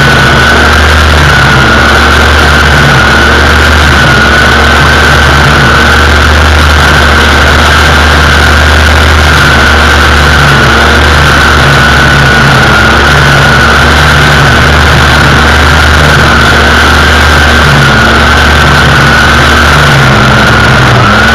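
String trimmer (weed eater) engine running steadily, very loud, with a high steady whine as its line cuts grass.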